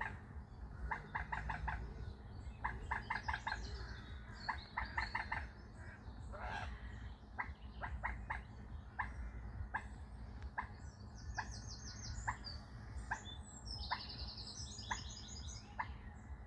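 Bird calls: sharp clicking notes, first in quick runs of four or five, then single clicks roughly once a second. Short high trills from small birds come in near the end.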